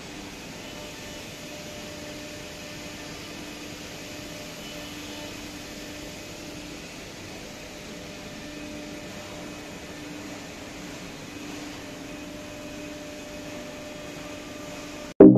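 Steady hum of woodworking factory machinery: an even, moderate noise with a few faint held tones.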